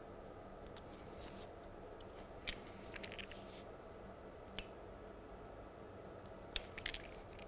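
Light, scattered clicks and small scrapes of a thin metal tool on the plastic and metal parts of a model railway point as the retaining tabs are bent back, with a small run of clicks near the end.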